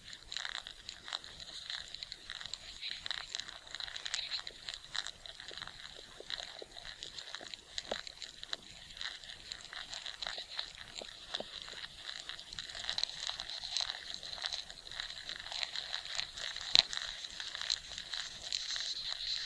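Dense, irregular scratchy crackling and fine clicking over a steady high hiss, presented as the sound of ants crawling, with one sharper click near the end.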